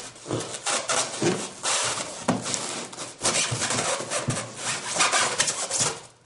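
Large cardboard box being tugged and shifted, with irregular scraping and rubbing of cardboard on cardboard as its lid, held down by tape, is worked at.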